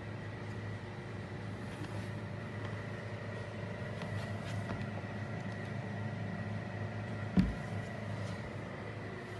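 Steady low hum with a faint high tone, a few faint light clicks, and one short dull thump about seven seconds in.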